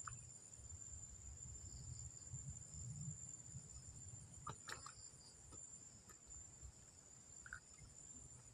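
Insects, likely crickets, trilling steadily in a high continuous chorus over a faint low rumble, with a few faint clicks about halfway through.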